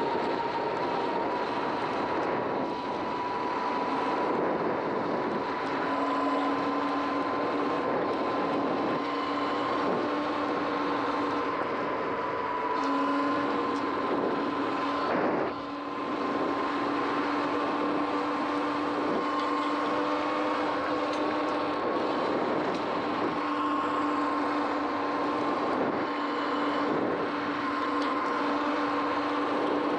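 Sur-Ron X electric dirt bike riding along a wet road: a steady high whine from the electric motor and drivetrain, creeping slowly up in pitch, with a lower hum joining it, over a continuous rushing noise.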